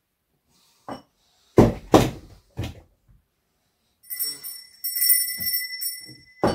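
A few sharp knocks, then a small hand bell ringing steadily for about two and a half seconds.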